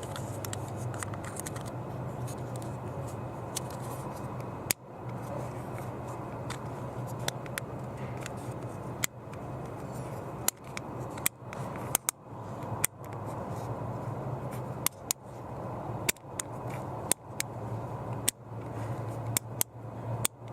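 Sharp, irregular clicks and knocks from hands working the plastic glove box latch mechanism, over a steady low hum. The clicks come more often from about halfway through.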